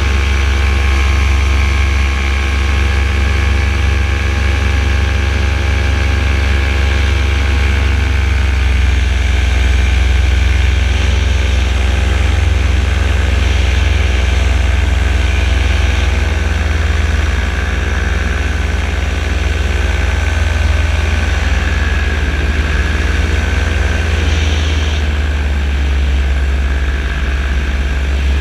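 Paramotor engine and propeller running steadily in flight. The engine note dips slightly and comes back up twice, about a third of the way in and again past the middle, as the throttle is eased.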